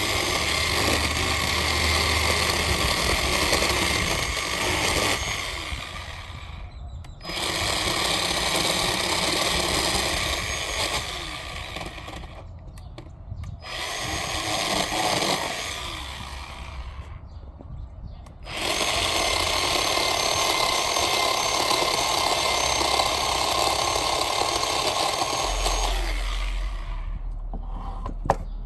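Bauer 20-volt cordless 10-inch chainsaw running and cutting wood, in four runs of several seconds separated by brief stops; the third run is weaker.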